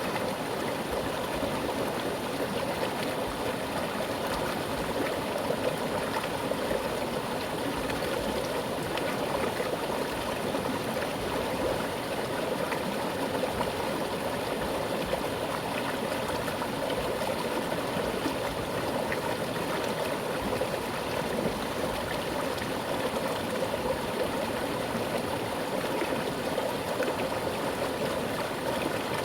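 Mountain river flowing fast over rocks: a steady rush of water with gurgling.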